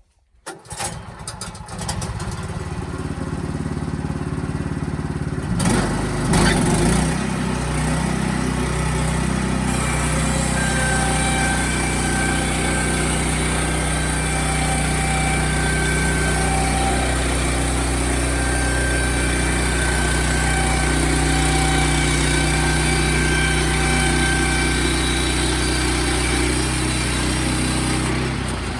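Sawmill's engine starting up, then running steadily under power, with a surge about six seconds in. From about ten seconds, thin high whining tones come and go over the engine.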